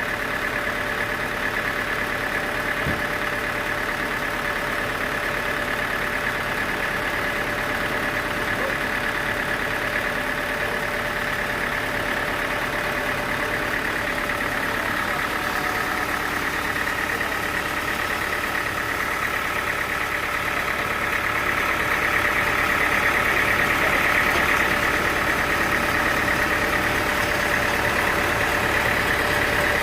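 Sawmill machinery running steadily, a motor hum with a high steady whine, growing somewhat louder about two-thirds of the way through.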